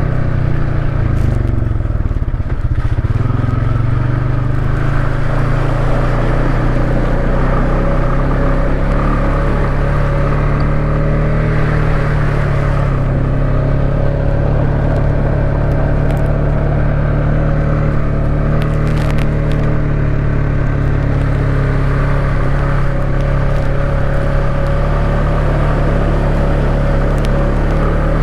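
ATV engine running at a steady, moderate speed while riding a trail, with a few brief clicks and knocks scattered through.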